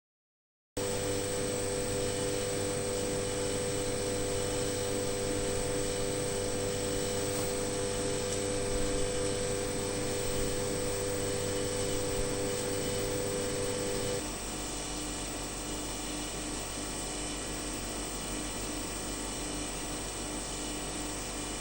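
Steady machine hum with several steady tones, starting abruptly under a second in. About fourteen seconds in, a mid-pitched whine drops out and the hum becomes slightly quieter and lower.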